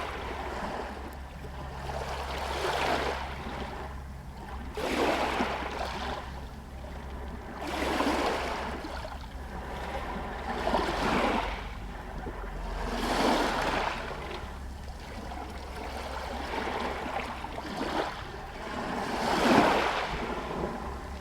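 Small Adriatic sea waves washing against a pier and stones, a soft surge of water every two to three seconds, the strongest near the end, over a steady low rumble.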